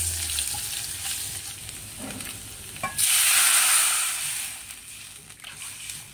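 Food sizzling in hot oil in an enamel pot, with a couple of light clicks from a spoon. About three seconds in, water poured from a mug hits the hot oil with a sudden loud burst of sizzling hiss that fades over the next second or two.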